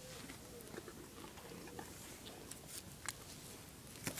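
A pony grazing, tearing at and chewing leafy plants: faint, irregular crunches and small clicks.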